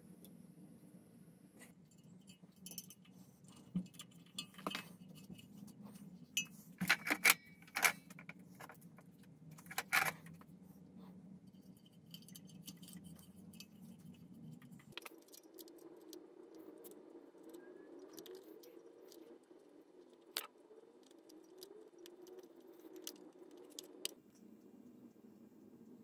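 Treadle fret saw converted to electric motor and chain drive, running with a low steady hum, metallic clinks and rattles, and louder clatters about seven and ten seconds in. The hum shifts higher about halfway through.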